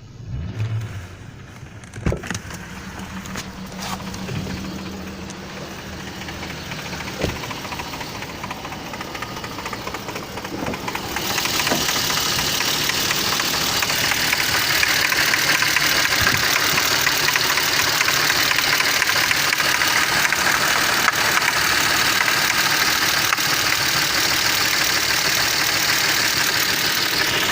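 BMW M52 inline-six engine running with a knock from the water pump pulley, which has worked loose. The sound gets much louder about eleven seconds in and stays so.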